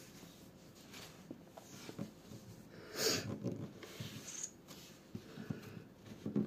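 Quiet room with faint rustling and small clicks from handling close to a phone microphone, and one short breathy noise about three seconds in.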